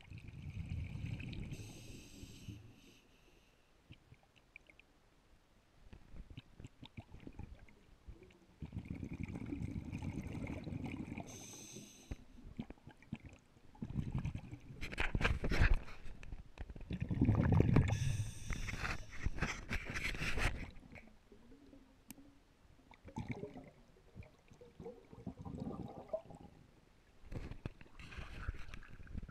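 A scuba diver breathing underwater through a regulator: about four bursts of exhaled bubbles gurgling past the camera housing, a few seconds apart, some with a hiss of inhalation. Near the end, softer water sounds as the camera reaches the surface.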